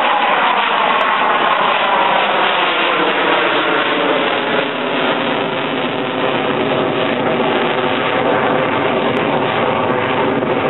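Fighter jet engine noise from a jet climbing away overhead: a steady, loud rushing sound whose pitch falls slowly over the first few seconds.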